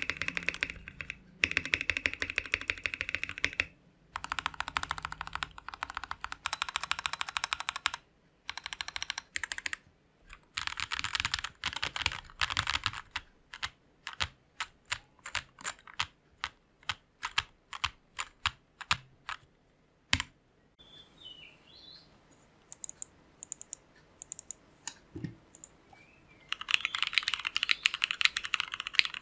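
Mechanical keyboard typing: a VX5 Indonesia Special with KTT Grapefruit switches typed in fast runs with short breaks, then slower single keystrokes. After a pause of several seconds, an Ozma60 with Tecsee Jadeite switches is typed in a fast steady run near the end.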